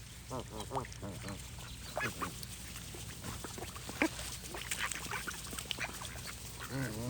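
Geese honking: quick runs of short repeated calls, one run near the start and another near the end, with scattered single calls in between.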